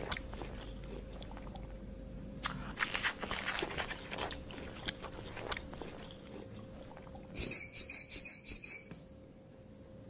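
Border collie puppy eating from a bowl: irregular crunching and chewing. Near the end comes a brief high, rapid chirping.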